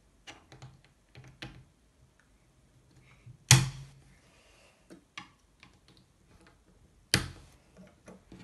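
Plastic Lego Technic Bionicle pieces clicking as they are pressed together by hand, a quick run of small clicks at first, then two much louder sharp knocks about three and a half seconds apart.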